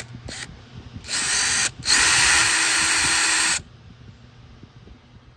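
Cordless drill/driver backing out a T15 screw from the inner fender liner. There is a short blip, then a run of about half a second, a brief pause, and a longer steady run of nearly two seconds before it stops.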